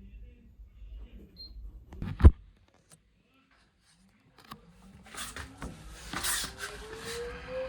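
A loud single click, then the BEKO washing machine's drum motor starting and spinning up: a whine that rises steadily in pitch, with some rattling as the drum gets going, as in the service test's motor check.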